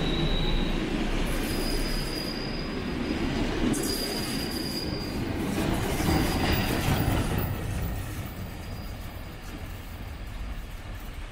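Steam train hauled by locomotive 431.032 running past, a steady rumble of the coaches on the rails with high, thin wheel squeal coming and going. The sound drops away about eight seconds in as the train recedes.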